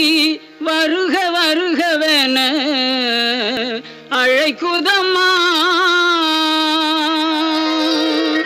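Devotional song: a single voice sings a slow, ornamented line with vibrato and slides, breaking briefly twice and then holding a long steady note.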